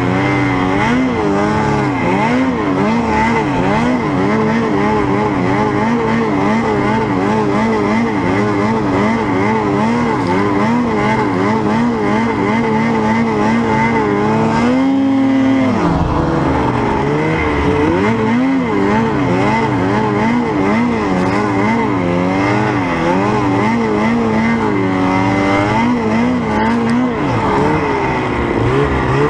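Snowmobile engine running under throttle, its pitch wavering up and down constantly. About halfway through it climbs to a high, held rev, then drops suddenly, and it rises again later on.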